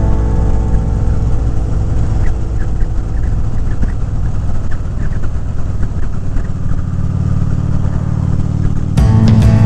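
Harley-Davidson touring motorcycle's V-twin engine running at road speed, with wind rush on a helmet-mounted microphone. About nine seconds in, music comes back in over it.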